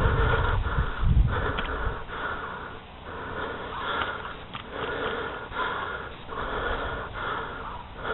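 A person breathing hard close to the microphone: quick, rhythmic, wheezy breaths in and out, with a low rumble in the first two seconds.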